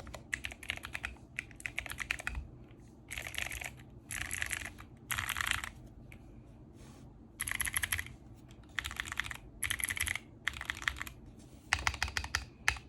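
Mechanical keyboard with clicky Outemu Blue switches being typed on: sharp clacks come in quick flurries of about half a second each, with short pauses between, and a few separate keystrokes near the start and end.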